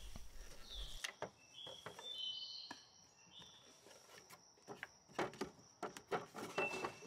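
Faint knocks and scrapes of a wooden drawer being handled and slid back into its table, with a few faint bird chirps about two seconds in.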